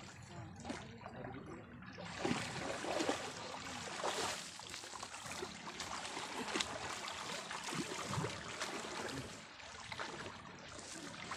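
Water splashing and sloshing as people wade and swim through a shallow river, picking up about two seconds in and going on as an uneven wash of small splashes.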